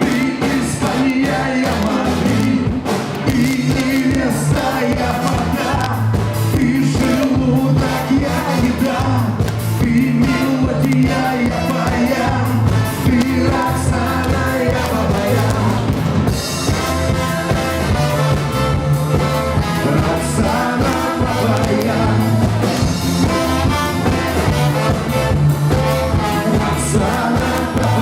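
Live band playing a pop-rock song with a singer's voice over bass and a steady drum beat.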